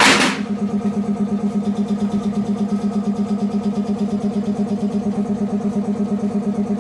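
Automatic glass-cutting machine running with a steady low hum that pulses evenly about six or seven times a second. A short hiss sounds at the very start.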